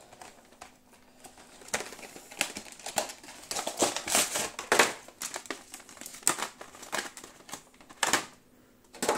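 Plastic packaging of a trading-card collection box crinkling and crackling in irregular rustles as it is unwrapped and its clear plastic lid is pulled open, starting a couple of seconds in, with a sharp crackle near the end.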